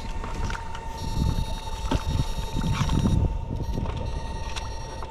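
Steady high-pitched whine of a 22-FET electric fish-shocking machine running, over low rumbling wind on the microphone and scattered knocks and splashes in shallow water.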